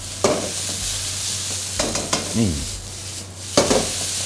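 Cooked red jasmine rice and chopped kale stems sizzling in an oiled wok as they are tossed and stirred with a spatula, with a few sharp clatters of the spatula and food against the wok.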